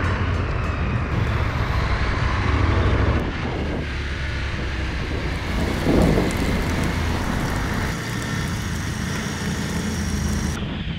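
Large adventure motorcycle engine running at a steady pace on a dirt trail, its low engine note under a dense rushing noise, with a single louder knock about six seconds in.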